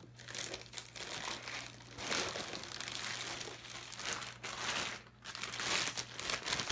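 Clear plastic bag crinkling and rustling as it is handled and lifted out of a box, with a brief lull about five seconds in.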